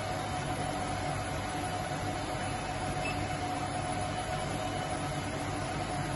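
A steady, unchanging drone: even hiss with a constant mid-pitched tone and a low hum, with no bangs or other distinct events.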